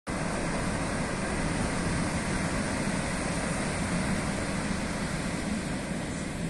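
Steady roar of Atlantic surf breaking along a sandy beach, even throughout without separate wave-by-wave swells.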